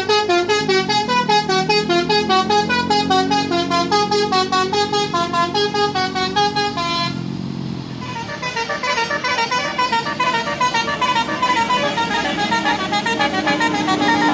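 Tourist bus's basuri telolet horn playing a fast melody of quick, stepped notes, stopping about seven seconds in. After a short break, another fast tune starts up.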